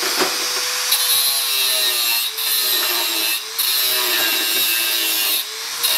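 Angle grinder with a thin cut-off disc cutting through a rusty steel bracket on a Honda Chaly motorbike frame: a steady high hiss over the motor's whine, which sags in pitch as the disc bites. The cut eases off briefly a few times, about two, three and a half and five and a half seconds in.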